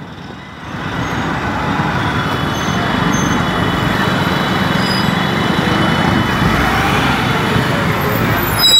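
Road traffic noise heard while moving through busy city traffic: a steady rush of engines and tyres that builds up about a second in, with a brief louder sound near the end.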